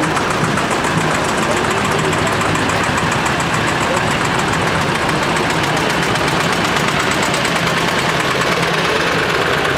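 Vintage tractor engine running as the tractor drives slowly past close by, pulling a loaded passenger wagon, with more tractors running behind it. People's voices are mixed in.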